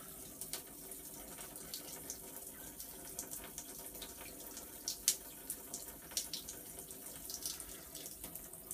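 Faint trickle of rainwater leaking in a thin stream through a hole in a boat's hull, with light irregular drips and splashes and one sharper drip about five seconds in.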